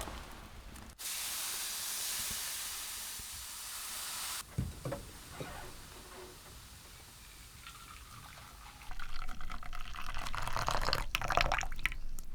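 A steady rush of liquid pouring that starts abruptly and stops after about three and a half seconds. A few soft knocks follow, then a stretch of irregular crackling and rustling near the end.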